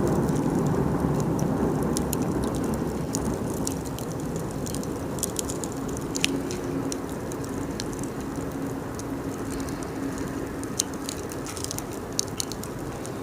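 Wood campfire burning and crackling: scattered sharp pops and snaps over a steady low rushing noise.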